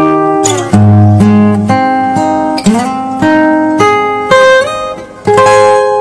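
Music: solo acoustic guitar picking slow single notes and chords, each struck note ringing on. A last chord is struck near the end and left to ring out and fade.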